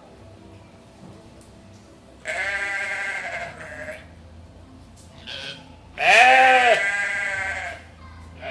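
Goats bleating: a long wavering bleat about two seconds in, a short faint call, then a louder bleat about six seconds in whose pitch rises and falls.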